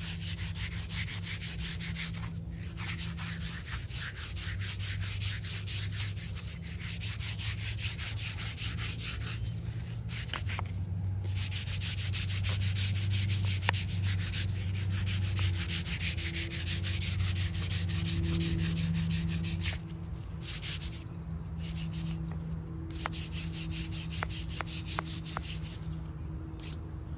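Hand brush scrubbing a stone grave marker in fast back-and-forth strokes, stopping briefly several times.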